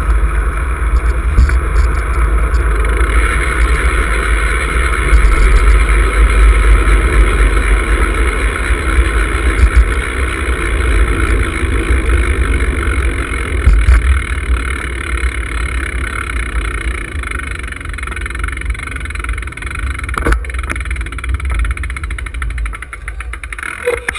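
Wind rushing over a bicycle-mounted camera's microphone while riding a road bike, a steady heavy low rumble that eases as the bike slows and drops away sharply near the end as it comes to a stop.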